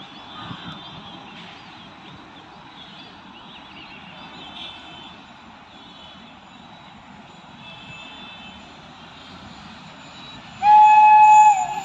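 Electric locomotive horn, a WAP4's, sounding one loud, steady note for just under a second near the end, over a quiet background of bird calls.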